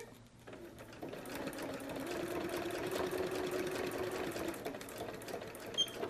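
Home electric sewing machine running, stitching a strip of Velcro onto fabric: a steady hum with rapid needle strokes, starting about half a second in and running at a steady speed from about a second in.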